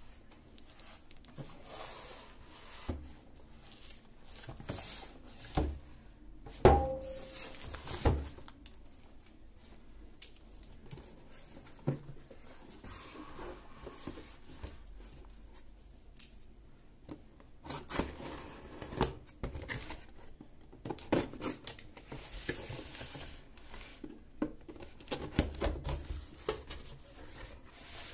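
Cardboard box being opened by hand: packing tape and cardboard cut and torn, with rustling of the carton and a few sharp knocks as it is handled.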